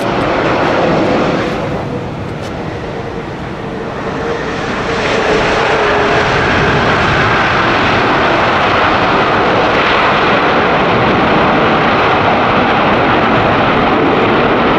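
Airbus A380's jet engines roaring as the airliner lands and rolls out on the runway, with a steady whine over the roar for the first few seconds. The roar swells louder about five seconds in and then holds steady.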